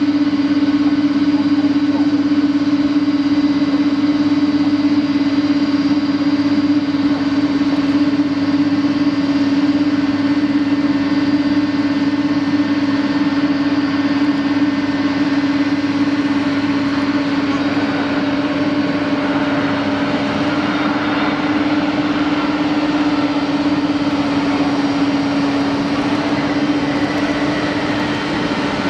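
Steady engine drone with one strong constant hum and fainter steady tones above it.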